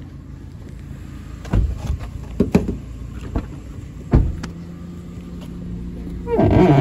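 Knocks and footsteps of a person walking to a small car and climbing in, over a low hum. A steady engine-like drone joins about two-thirds of the way in, and a loud rustle comes near the end.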